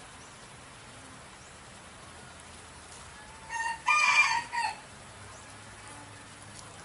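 A rooster crowing once, about three and a half seconds in: one call of about a second and a half in several parts, the loudest sound here.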